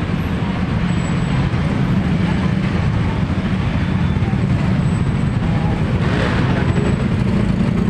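Steady street traffic rumble from motorcycles, tricycles and other vehicles, with people talking, swelling briefly about six seconds in.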